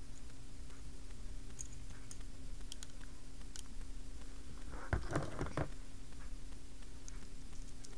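Small plastic toy pieces clicking and knocking as they are handled and fitted together, with a denser cluster of knocks about five seconds in.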